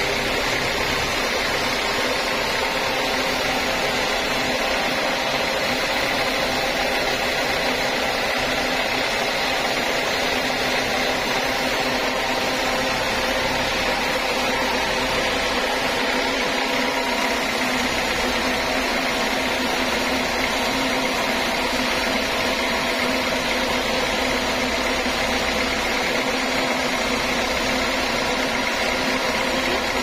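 Band sawmill running and sawing steadily lengthwise through a large hardwood log on its carriage, a continuous even whirring and hiss of blade and motor.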